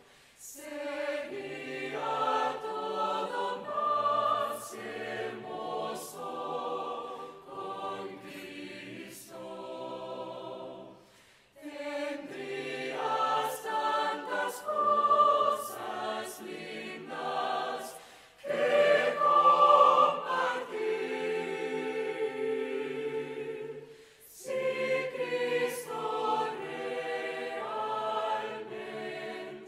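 Mixed choir of male and female voices singing together in long phrases, with brief breaks between phrases about 11, 18 and 24 seconds in.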